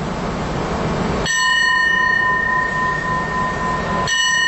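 An arriving diesel railcar rumbles, then its horn sounds one long, steady, loud blast beginning about a second in.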